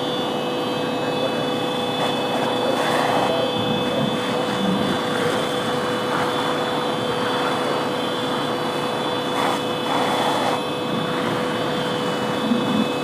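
Fire engine pump running with a steady drone and constant whine, feeding hose lines at a structure fire, with the hiss of water streams. It gets briefly louder and noisier about three seconds in and again around ten seconds, and a short sharp knock comes near the end.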